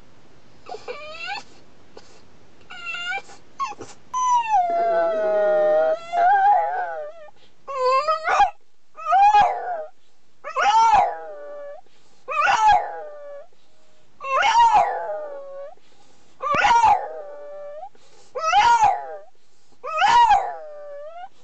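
French Bulldog howling: a few short high cries, then one long howl that falls in pitch, then a string of shorter howls about every two seconds, each rising and falling.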